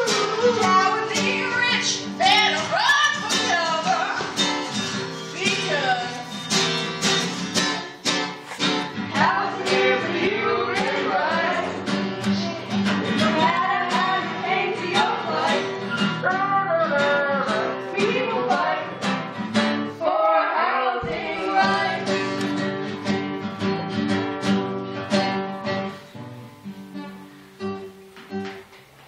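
A voice singing a song over strummed acoustic guitar; the music thins and fades out near the end.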